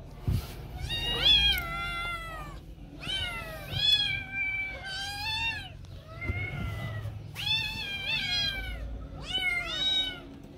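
Several kittens meowing over and over, eight or nine rising-and-falling calls, some overlapping, as they beg for food.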